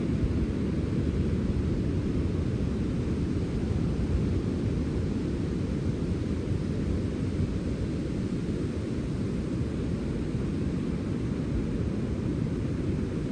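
Wind off the sea blowing steadily: a deep, even rushing noise heavy in the low end, with no gusts or breaks.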